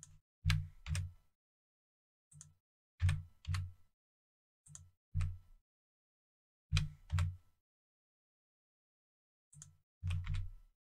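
Clicks of a computer keyboard and mouse, in five short groups of mostly two taps each, every tap with a dull thud.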